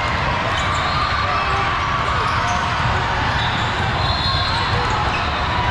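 Steady din of a big hall full of basketball games: basketballs bouncing on hardwood courts, mixed with the chatter of players and spectators.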